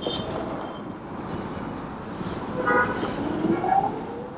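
Busy street traffic heard from a moving scooter: a steady haze of road and engine noise, with a vehicle horn tooting briefly near the middle.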